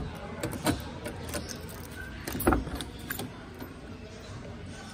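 Keys jangling and clicking as a key is worked in the driver's door lock of a Suzuki Cultus, then a louder clunk about halfway through as the door is unlatched and pulled open, followed by a few lighter knocks.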